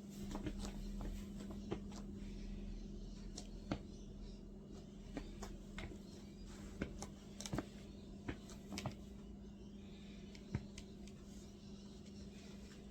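Steady low hum with scattered light clicks and taps.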